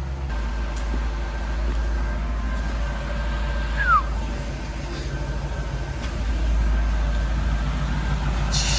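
LS1 V8 engine swapped into a Nissan 300ZX running with a steady low exhaust rumble, which grows a little louder in the last couple of seconds. A short falling squeak sounds once about four seconds in.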